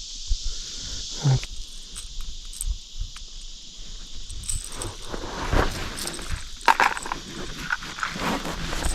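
A steady high, buzzing chorus of insects, with scattered clicks and rustling handling noises that grow busier in the second half.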